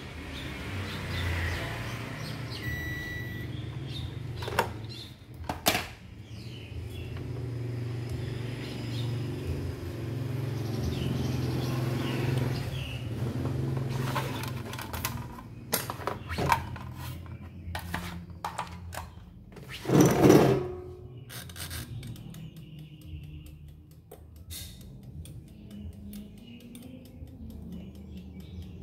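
Handling noise from working on an air fryer: scattered clicks, knocks and rattles of parts and tools, with a short beep near the start and a louder clatter about two-thirds of the way through.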